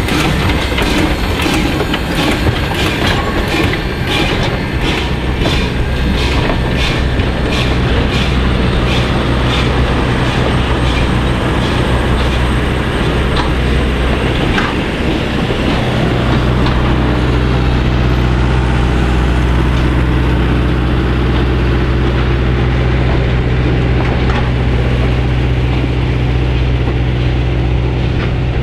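A steam tank locomotive and its passenger cars rolling slowly past close by. A steady beat of sharp strokes, about two a second, fades over the first twelve seconds. It gives way to a steady low rumble as the cars roll by.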